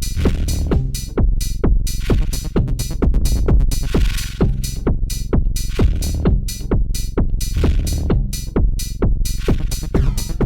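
Techno played live on an Elektron Digitakt 2 sampler and a Soma Pulsar-23 analog drum machine: a steady, even drum-machine beat over a heavy bass line, running without a break.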